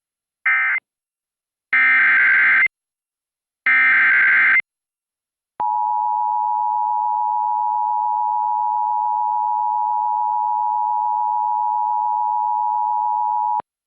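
Emergency Alert System tones that open a broadcast alert. First come three short bursts of SAME header data, a buzzy two-pitch data screech (the first burst is clipped short). About a second later the EAS two-tone attention signal starts, a steady dual tone held for about eight seconds, and it cuts off sharply.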